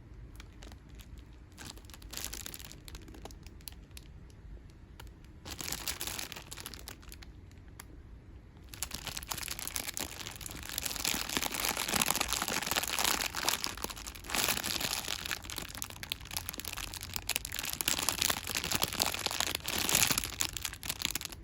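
Crinkling and rustling of plastic being handled: short bursts at first, then continuous and louder from about nine seconds in.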